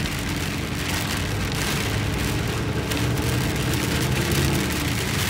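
Heavy rain drumming steadily on a car's roof and windshield, heard from inside the moving car's cabin, over a low, steady hum of the car on the wet road.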